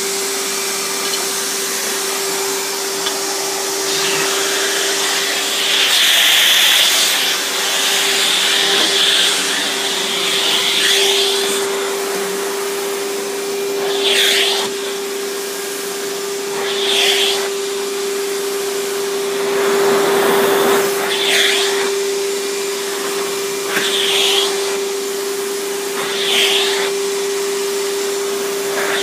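Riccar 10-amp bagged vacuum cleaner running with a steady motor whine, its airflow hiss surging and easing again and again as the nozzle is worked over a carpet mat.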